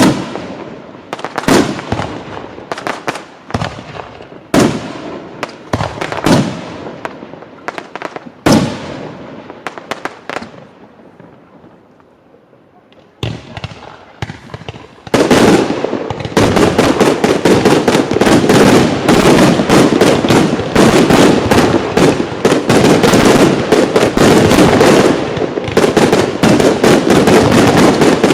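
Fireworks display: single loud bangs about once a second, each with a trailing echo, then a brief lull. About halfway through comes a dense, continuous barrage of rapid-fire bangs and crackle.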